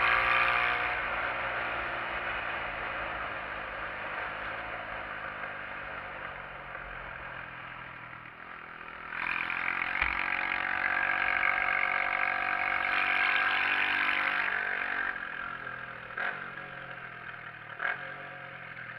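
SYM XS125-K motorcycle's 125 cc single-cylinder four-stroke engine, heard from the rider's seat while riding. The engine note eases off over the first several seconds, picks up again under throttle about nine seconds in and holds for a few seconds, then eases off once more. Two short clicks come near the end.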